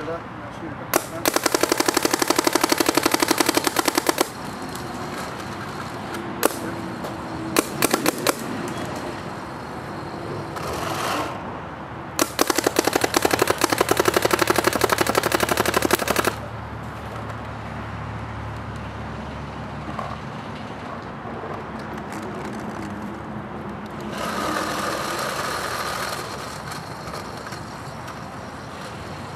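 Smart Parts Shocker RSX electropneumatic paintball marker firing on compressed air: two rapid strings of shots, one about three seconds long and one about four seconds long, with a few single shots between them.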